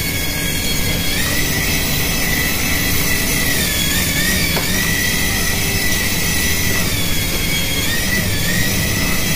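Small battery-powered toy remote-control helicopter in flight, its tiny electric motor and rotor blades giving a steady high whine that dips briefly in pitch a few times.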